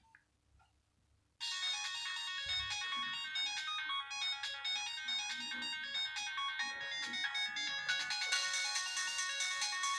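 Nokia 1202 mobile phone ringtone: after a short silence, an electronic ringtone melody starts suddenly about a second and a half in and plays on, growing fuller near the end.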